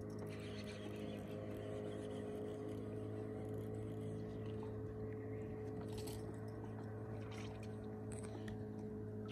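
Quiet background music: a low, steady sustained drone.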